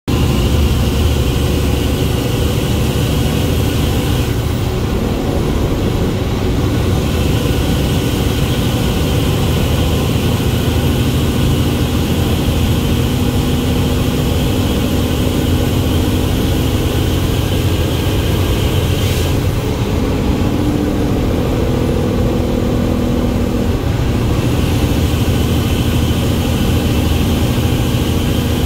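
Semi-truck running at highway speed, heard inside the cab: a steady engine and road rumble with a few held hum tones.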